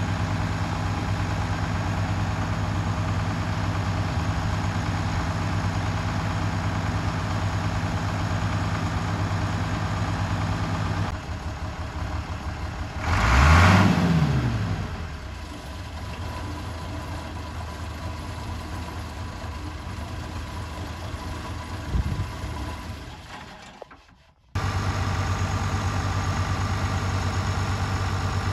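International 986 tractor's turbocharged six-cylinder diesel engine idling steadily. About halfway through it is revved once, its pitch rising and falling back. It then runs quieter with a single knock, fades out, and cuts back in at a steady idle near the end.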